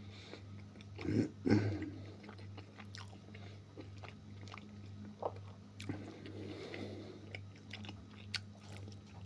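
A man chewing a mouthful of food with his mouth closed, close to the microphone: soft wet mouth clicks and smacks, with a louder cluster about a second in. A steady low hum runs underneath.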